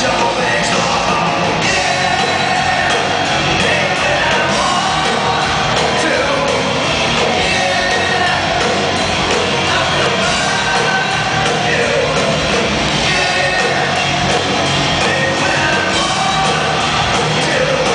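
Live hard rock band playing loudly: electric guitars, bass and drums under a male lead singer, heard from within the audience.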